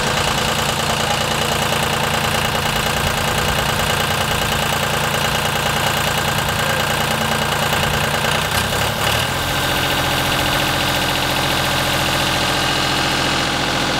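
Engine of a yellow ride-on vibratory plow running steadily as PVC pipe is pulled into the ground behind its blade. The engine's note changes about nine seconds in.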